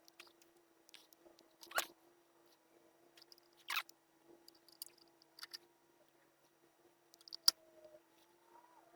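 Scattered small clicks and handling noises from parts and wires being worked by hand, three of them sharper (about two, four and seven and a half seconds in), over a faint steady hum.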